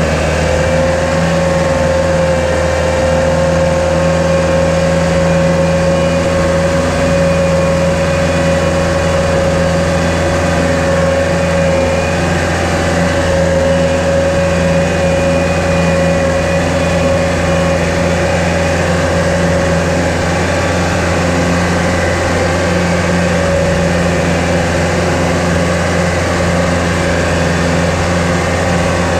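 Compact tractor's diesel engine running steadily under load, heard from the driver's seat, with a steady high whine over it and the slosh of the tyres churning through muddy water.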